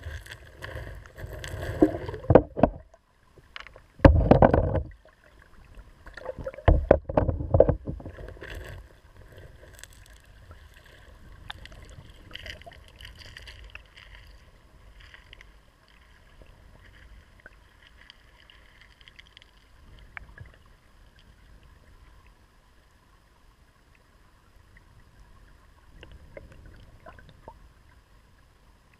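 Shallow river current heard from a camera submerged on the pebble bed: irregular loud bursts of rushing, bubbling water through the first several seconds, then a quieter, steady bubbling flow.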